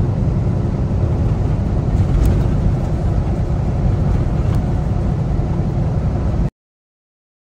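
Steady low rumble of a Kenworth T680 semi-truck's engine and tyres heard inside the cab at highway speed, with a couple of faint ticks; it cuts off abruptly into silence near the end.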